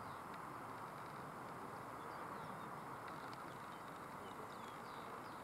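Steady, distant jet noise from the Embraer KC-390's two turbofan engines as it flies low past, heard as an even hiss, with small birds chirping faintly over it.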